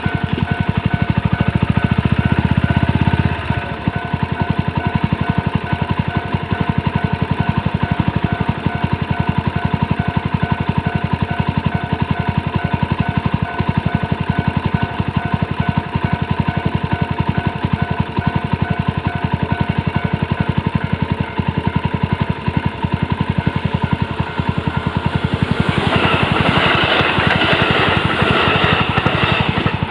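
Kawasaki Grasstracker BigBoy's single-cylinder four-stroke engine idling with a steady, even pulse, a little heavier in the first few seconds. Near the end a louder rushing noise joins it.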